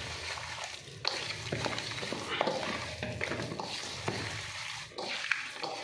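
A hand mixing raw boneless chicken breast pieces in an oily spice and lemon marinade in a stainless steel bowl, in irregular strokes.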